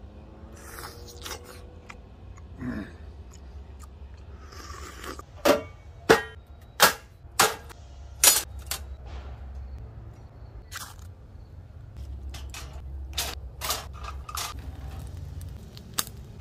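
Sharp metal clanks as a folding steel fire pit and its perforated grill plate are set in place: five loud strikes in about three seconds from about five seconds in, then fainter clicks.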